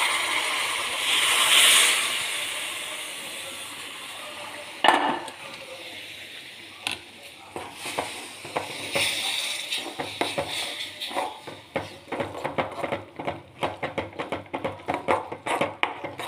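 Hot water poured into wheat flour roasted in ghee in a hot steel pan, hissing and sizzling loudly and then dying away, with a second, smaller sizzle about nine seconds in. In the last five seconds a steel spoon stirs the batter, clinking and scraping against the pan several times a second.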